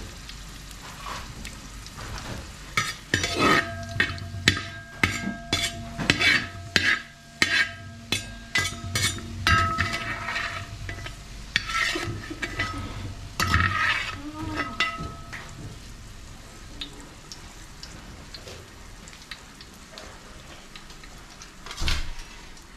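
A perforated metal ladle scraping and clinking against a wide aluminium pan, scooping fried cashews and raisins out of hot ghee, with the pan ringing after the strokes and a low sizzle beneath. The scraping stops about 16 seconds in, leaving only the faint sizzle and a single knock near the end.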